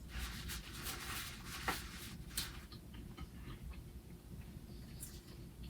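Crunching and chewing of truffle chips close to the microphone: a hiss of crunching in the first second, then scattered small clicks from chewing.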